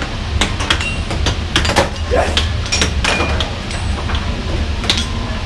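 Air hockey puck being hit back and forth with mallets, clacking off the table's rails in quick, irregular knocks over a steady low hum.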